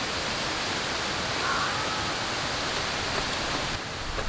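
Steady, even hiss with no distinct events, dropping slightly just before the end.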